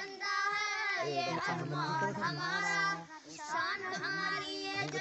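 A group of children singing a Hindi patriotic song together, with long held, wavering notes and a short break about three seconds in.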